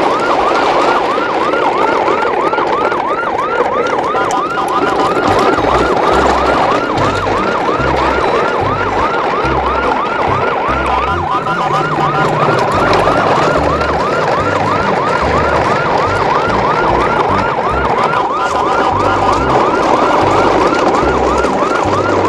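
Electronic yelp siren: fast rising sweeps, about three a second, repeating without a break, over an irregular low thumping.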